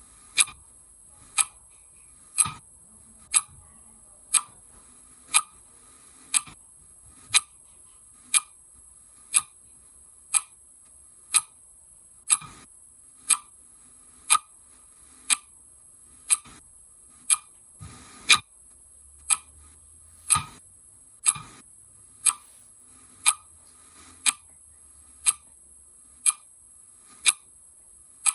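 Clock ticking steadily, about one tick a second, over a steady high hiss.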